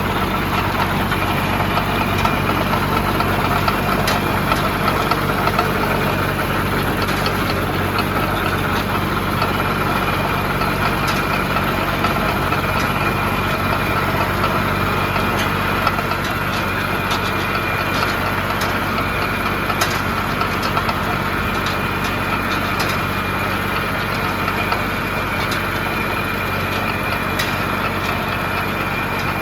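Siromer tractor's diesel engine running steadily in low gear, with occasional faint clicks over the engine sound.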